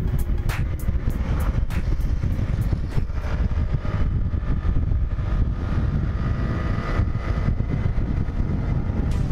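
Wind buffeting the microphone of a rider on a moving scooter, with road and engine noise underneath: a steady low rumble broken by irregular gusts.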